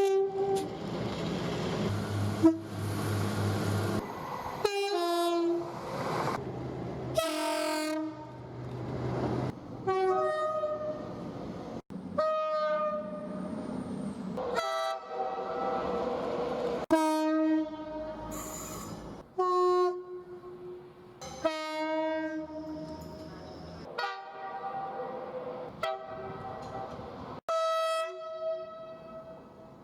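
A rapid series of British trains' two-tone horns, cut together from many short clips. Each blast is a brief pair of tones, one high and one low, and one clip follows another every second or two. Train running noise rumbles beneath some of them.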